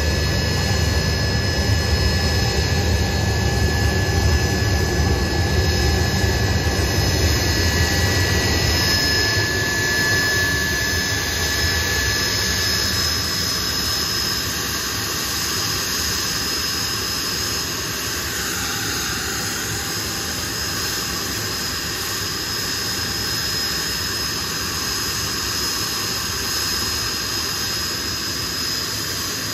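Blackburn Buccaneer's twin Rolls-Royce Spey jet engines running as the aircraft taxis: a high steady whine over a deep rumble, which eases off about ten seconds in.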